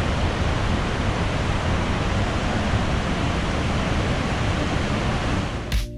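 Steady roar of the Iguazu waterfalls, a loud, even rush of falling water. Guitar music cuts in just before the end.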